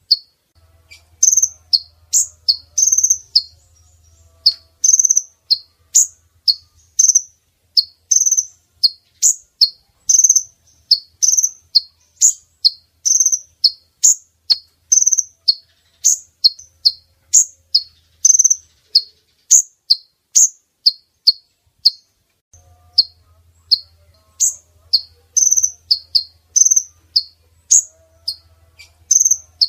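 Female kolibri ninja sunbird calling: a long series of short, sharp, high chirps, about two a second, with a brief pause near the end. It is the female's call played as a lure to draw males in.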